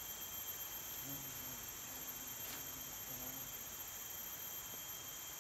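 Steady high-pitched drone of forest insects, several even tones held without a break. A faint low humming sound comes in about a second in and fades out around the middle.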